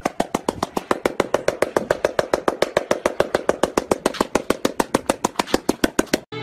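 A dog's wagging tail beating against a concrete floor: a fast, even run of knocks at about seven a second that cuts off near the end.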